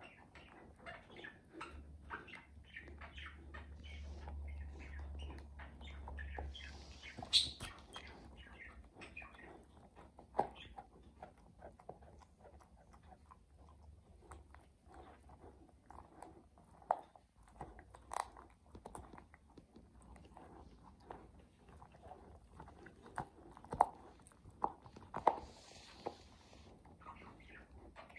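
A beagle gnawing a knotted rawhide chew bone: irregular crunching and clicking of teeth on the hide, with a few sharper cracks in the second half.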